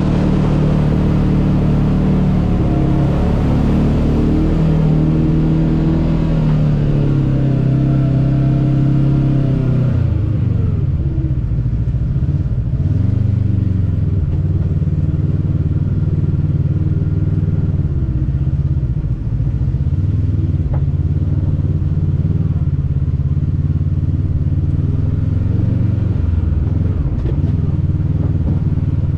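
Kawasaki Teryx KRX 1000 side-by-side's parallel-twin engine running under load on a rough trail: its pitch climbs over the first ten seconds or so, drops and wavers a few seconds later, then settles to a steadier, lower note.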